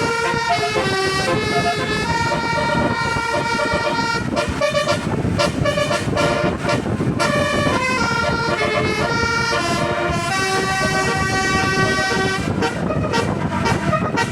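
Bus telolet horn, a multi-tone musical air horn, playing a melody: a continuous run of held notes stepping up and down in pitch, over a low rumbling noise.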